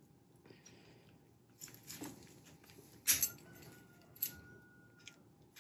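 A VW Mk1 ignition lock cylinder and key being worked into a new steering lock housing: quiet handling with a few small clicks, the sharpest about three seconds in.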